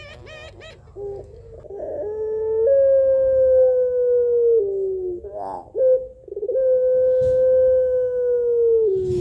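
Ringneck dove (puter pelung) calling: a few quick quavering notes at the start, then two long drawn-out coos, each held for a couple of seconds, slowly sinking in pitch and dropping a step at the end, with a short fluttery note between them. A female calling for a male.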